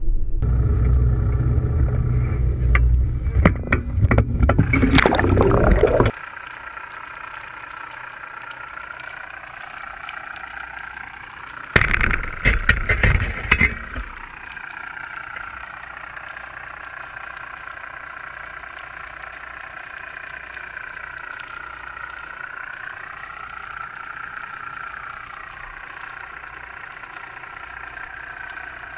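Loud rumbling water and wind noise at the sea surface that cuts off abruptly about six seconds in as the camera goes under. Then a muffled underwater hum with whining tones that slowly rise and fall, typical of a boat's motor heard through the water, broken around twelve seconds in by a brief loud burst of noise.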